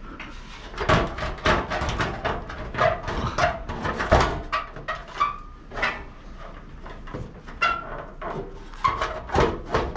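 A square ceiling supply diffuser being worked out of a metal T-bar ceiling grid by hand: a run of knocks, clatters and scrapes, with a few short squeaks.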